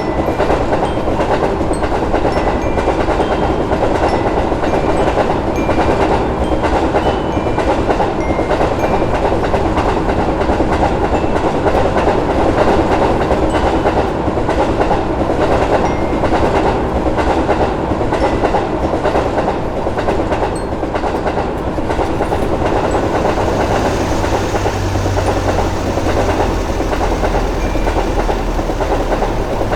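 Train passing at speed, its wheels clacking steadily over the rail joints. About 23 seconds in a lower hum comes in under the clatter.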